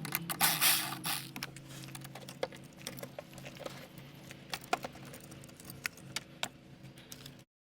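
Hand tools and metal parts clicking and clattering irregularly, with a short rustle about a second in, as the car battery is disconnected. A steady low hum runs underneath.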